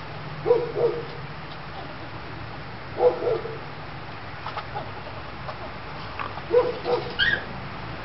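Short clucking animal calls in a few clusters of two or three, with one brief higher chirp near the end.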